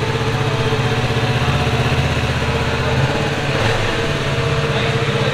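Kawasaki Ninja 300's parallel-twin engine idling steadily.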